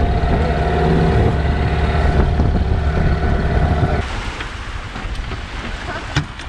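Small outboard motor on an inflatable dinghy running steadily under way, with wind on the microphone. About four seconds in it cuts off suddenly, leaving wind and small waves on a beach, with one sharp click near the end.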